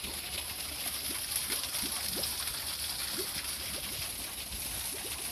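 Water running over rocks in a small garden stream, a steady rush with small gurgles and bubbling.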